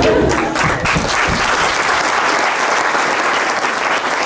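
Theatre audience applauding loudly and steadily for the curtain-call bow at the end of the play, with a few voices in the crowd near the start.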